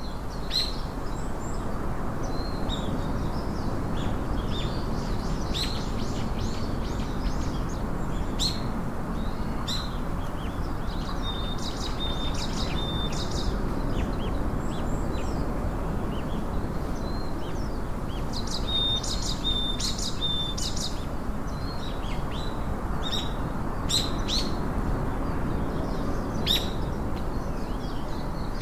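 Small birds chirping: scattered short high chirps, with two runs of rapidly repeated notes, over a steady background hiss.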